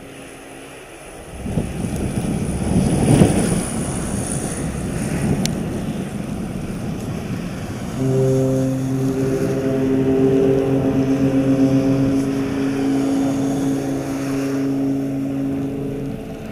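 Cruise ship's horn sounding one long, deep, steady blast of about eight seconds, starting about halfway through: a long-blast salute exchanged between cruise ships. Before it, a rushing noise swells and fades.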